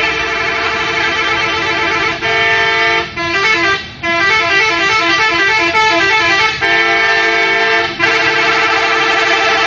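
A bus's 'telolet' horn, a multi-tone musical horn, playing a long run of quickly alternating notes. It breaks off briefly a few times and starts again.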